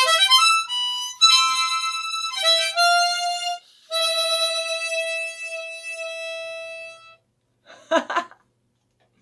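Harmonica played: a quick run of rising notes, then a few short notes and chords, then one long held note that fades out about seven seconds in. A short laugh follows near the end.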